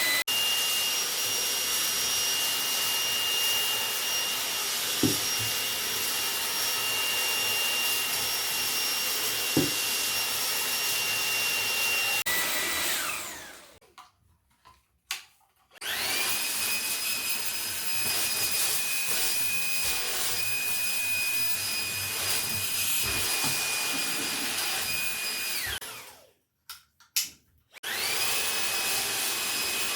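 Dreame V11 cordless stick vacuum's 125,000 rpm motor running with a high, steady whine over rushing air. It winds down about halfway through and starts again a couple of seconds later, the whine rising as it spins up. Near the end it cuts off once more and spins back up, and two light knocks come during the first run.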